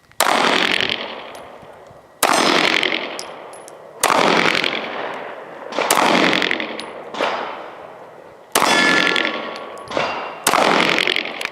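Gun fired in slow single shots at an outdoor range: six loud reports roughly two seconds apart, each echoing away for a second or so, with a fainter shot just before the last.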